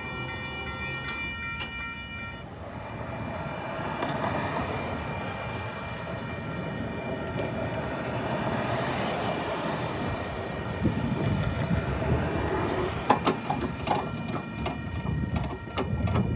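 A train horn sounds a steady chord that cuts off about two seconds in, then a train rolls through, its rumble building, with the wheels clicking over rail joints growing louder near the end.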